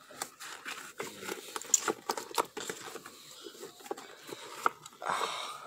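Light, irregular clicks and taps of small plastic Lego minifigures being knocked about on a shelf by a pet nosing among them, with a short rustle about five seconds in.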